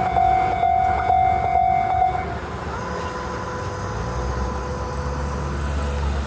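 A railway level-crossing warning bell rings a steady, repeating tone that cuts off about two seconds in. A low rumble and a faint steady hum follow.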